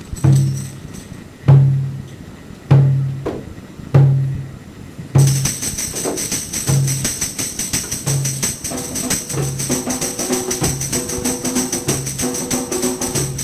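Drum-and-tambourine intro music. A deep drum beats slowly, about once every second and a quarter. About five seconds in, a steady tambourine jingle joins it, and a few seconds later held notes from another instrument come in.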